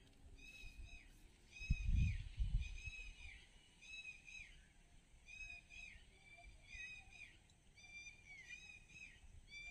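Animals calling over a swampy pond: short, arched, high calls about twice a second, more than one caller overlapping at slightly different pitches. A brief low rumble about two seconds in is the loudest sound.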